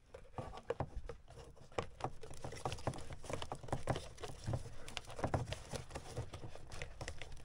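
A plastic duct adapter being worked up into the metal plenum of a Coleman Mach rooftop RV air conditioner: irregular light clicks, taps and scraping of plastic against metal and foil tape as it is pushed into place.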